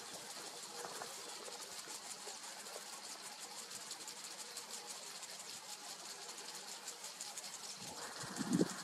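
Insects chirping in a steady, fast, high-pitched ticking. A short louder noise comes in near the end.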